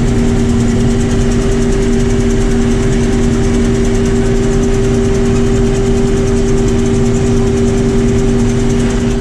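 Combine harvester running steadily while harvesting wheat: a loud, even machine drone with two steady humming tones and no change in speed.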